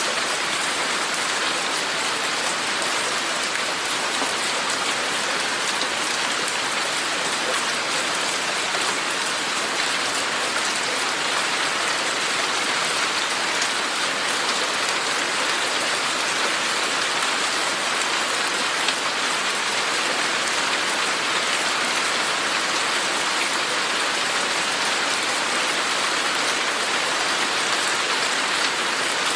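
Steady rain falling and pattering on surfaces, an even hiss of many drops with no thunder or other sounds.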